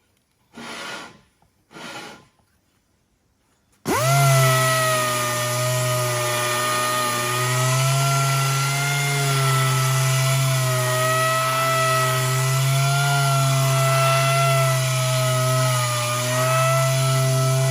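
Handheld power sanding tool grinding curb damage out of the edge of an aluminium alloy wheel. After two short scuffing sounds it spins up about four seconds in and runs steadily, its pitch wavering slightly as it works along the rim.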